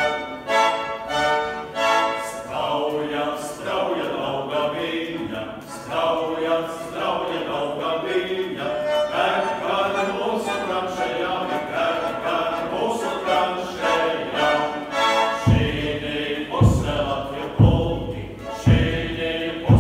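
A five-man male vocal ensemble singing in close harmony without instruments. About three-quarters of the way through, deep thumps about once a second join in as a beat under the voices.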